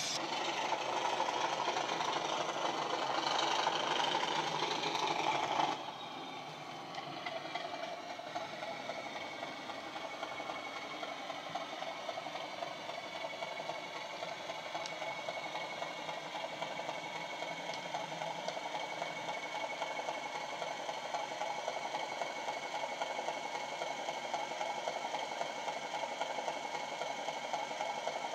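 Model railway wagons clattering over the track, which cuts off suddenly about six seconds in. Then a Bachmann class 37 model's DCC sound decoder steadily plays a diesel engine sound, the English Electric engine of a class 37, through its EM1 and megabass speakers as the locomotive runs slowly.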